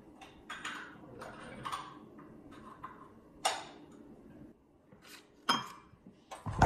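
Hands working on a motorcycle: scattered clicks, clinks and rustles of small metal parts being handled, with a sharper knock about three and a half seconds in, another about five and a half seconds in, and a loud bump near the end.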